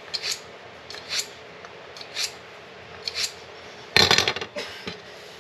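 Fillet knife drawn through a handheld pull-through sharpener, one short stroke about every second, four times. About four seconds in comes a louder clatter of knocks.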